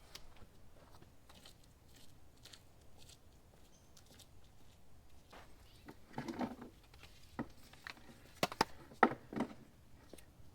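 Faint scattered clicks and rustles of objects being handled, with a brief burst of handling noise past the middle and a few sharper clicks and knocks near the end.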